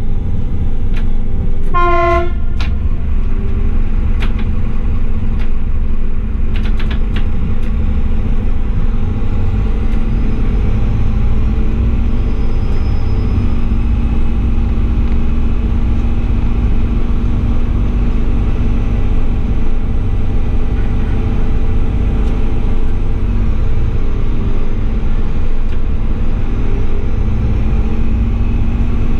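Class 840 RegioSpider diesel railcar running, a steady heavy rumble of wheels and running gear heard close to the bogie, with a short horn toot about two seconds in and a few sharp clicks.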